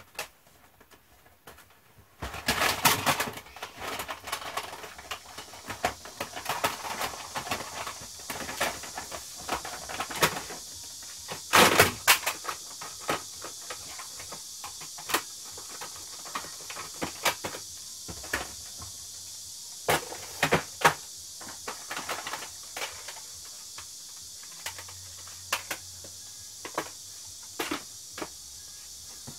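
Plastic cassette tape cases clicking and clacking as they are handled, stacked and slotted onto shelves, in irregular knocks with a louder cluster about twelve seconds in. A steady hiss runs underneath from about two seconds in.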